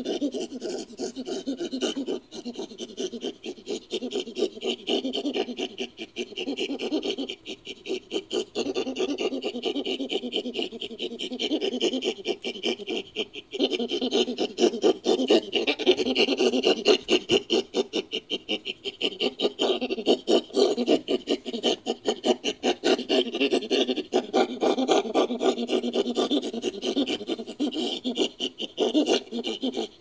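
Creature sound effect built from edited chimpanzee vocalisations: a fast, rhythmic train of short breathy grunts that goes on with only brief breaks. It grows louder about halfway through.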